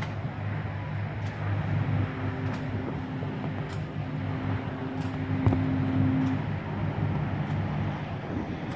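Steady low engine drone from distant motors, with a faint held tone for about four seconds in the middle.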